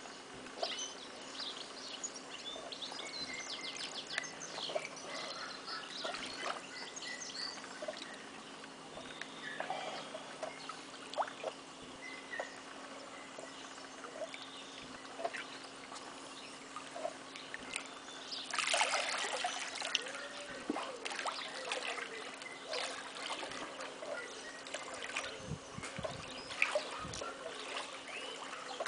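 Swimming-pool water splashing and trickling as someone moves slowly through it, with many small drips and splatters and a louder splash about two-thirds of the way through. A steady low hum runs underneath.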